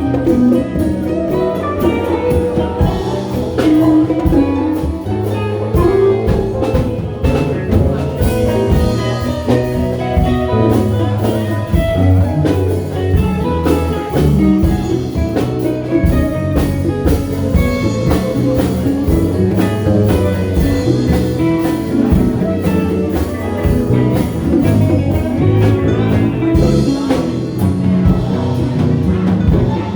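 A band playing a continuous instrumental passage with guitar and drums.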